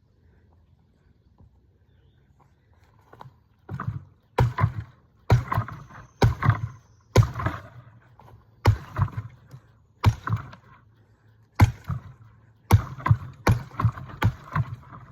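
Axe chopping wood: about a dozen sharp blows, starting a few seconds in and coming unevenly, closer together near the end.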